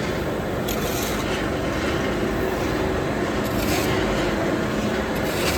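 Steady mechanical running noise of a continuous carbonization furnace under test, its rotating drum, feed conveyor and burner working together, with a low hum and a few brief hissing bursts.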